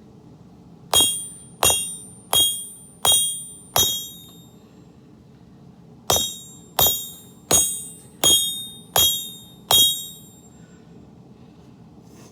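Hand hammer striking a sword blade on an anvil while forging, each blow ringing with a bright metallic tone. Eleven blows in two runs, five then six, a bit under a second apart, with a pause of about two seconds between the runs.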